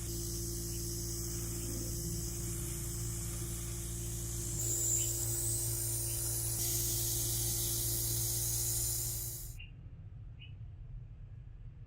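A steady hiss over a low, steady machine hum. The hiss shifts about halfway through, with a faint rising whistle, then cuts off suddenly near the end, leaving a few faint clicks.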